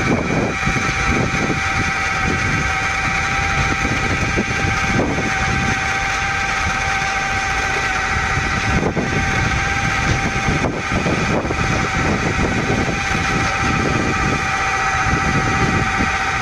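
Electric variable-speed buffer running steadily with a constant-pitch motor whine as its pad is held against a fiberglass sailboat hull, cutting oxidized gel coat with heavy cutting compound.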